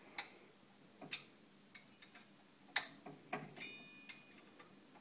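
Light metallic clicks and taps as a hex key works at the bolts of a bicycle's rear disc-brake caliper to loosen them, about five irregular clicks with the loudest a little before the midpoint. A brief high metallic ring sounds about three and a half seconds in.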